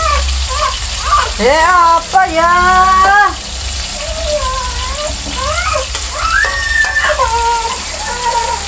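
A high-pitched voice with long, gliding, drawn-out tones, loudest from about one and a half to three seconds in, over the steady sizzle of food deep-frying in oil in a wok.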